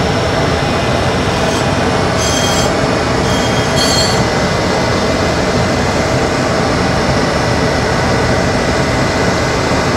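Tool and cutter grinder running its 60-grit aluminum oxide wheel while a diamond dresser is passed across the wheel face to true it: a loud, steady grinding noise, with a few brief high squeals in the first four seconds.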